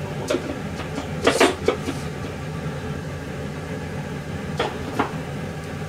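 A few sharp knocks and clicks of kitchen work at the stove over a steady background hum, the loudest a quick cluster about a second and a half in.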